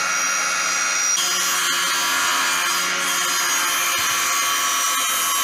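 Electric multifunction woodworking machine running steadily at full speed as a pine board is fed over its jointer-planer.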